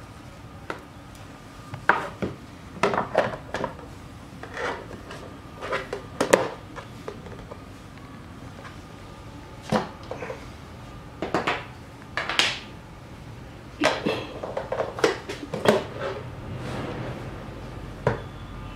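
Plastic vegetable slicer-grater and its parts being handled on a wooden table: irregular knocks, clatters and short scrapes, some in quick clusters.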